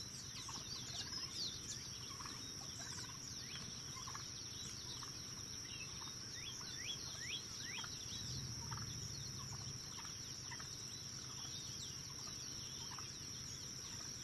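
Wild turkeys gobbling at a distance, with a low rumble about eight seconds in. Behind them run a steady high insect drone and many short, falling chirps from small birds.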